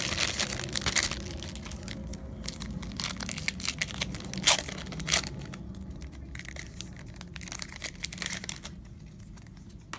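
Foil wrapper of a Pokémon XY Breakthrough booster pack crinkling and being torn open, with a couple of sharp snaps midway. The crackling dies down near the end.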